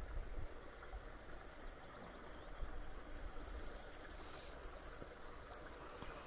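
Outdoor ambience: gusty wind rumbling on the microphone, with faint birdsong.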